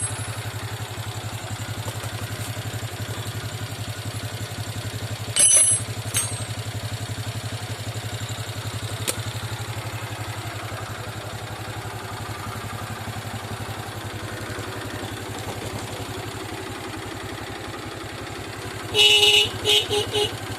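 Motorcycle engine idling steadily, with short honks from its newly fitted electric horn: a brief one about five seconds in and a quick series of four beeps near the end.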